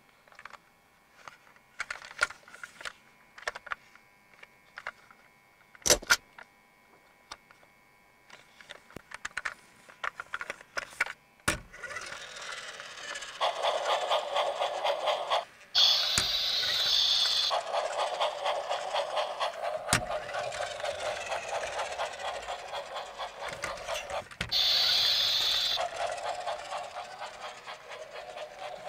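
Light plastic clicks and knocks from handling a toy, then, about twelve seconds in, a battery-powered plastic Thomas the Tank Engine toy train is switched on and runs: its small motor and gears whir with a fast, even clatter that continues to the end, broken by two short brighter bursts of sound.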